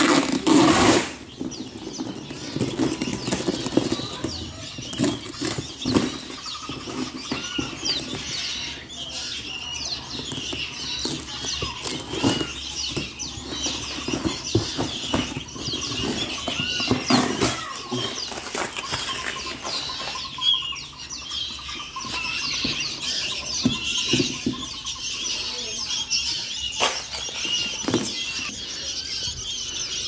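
Many young songbird chicks chirping without pause in short, high calls, over the rustling and knocks of a cardboard box being handled, with a loud rustle in the first second.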